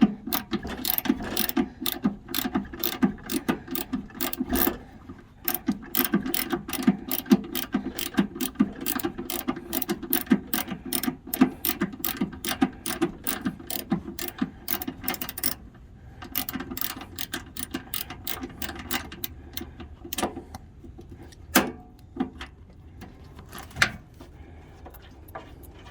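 Ratchet wrench with a socket clicking rapidly as it backs out a freshly broken-loose bolt on a snowblower's guard. A short pause comes about five seconds in, and after about fifteen seconds the clicking thins to scattered clicks and a few sharp knocks.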